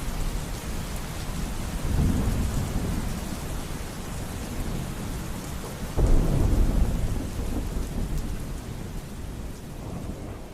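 Steady rain with thunder: a rumble swells about two seconds in, and a louder, sudden clap about six seconds in rolls away slowly.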